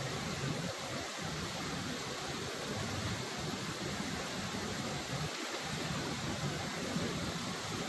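River water rushing over rocks in small rapids: a steady rush with no breaks.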